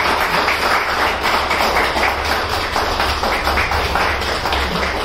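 A small crowd clapping and applauding, a dense, steady patter of many hands.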